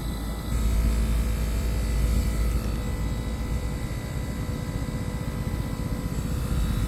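Steady low drone of running machinery, with a thin steady hum over it; it swells slightly about half a second in.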